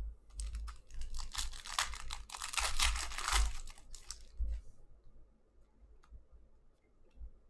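A foil Panini Prizm trading-card pack being torn open and crinkled by hand, a dense crackling that lasts about four and a half seconds. After it come a few faint ticks as the cards are handled.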